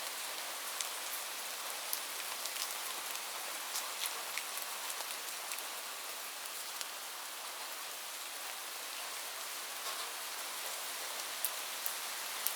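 Steady rainfall, an even hiss with scattered sharper ticks of individual drops hitting close by.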